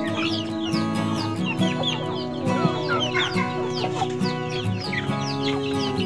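A flock of chickens clucking, with many short, falling peeps from young chicks, over background music with steady held notes.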